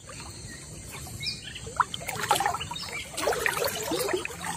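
River water sloshing and splashing in irregular bursts as someone wades chest-deep through a flowing river.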